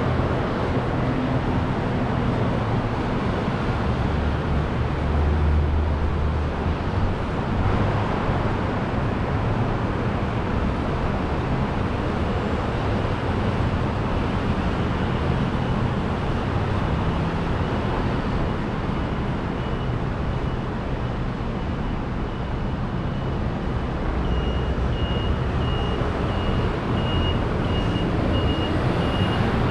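City street traffic: a steady wash of engine rumble and tyre noise from passing cars, trucks and scooters. A high electronic beep repeats evenly in the last few seconds.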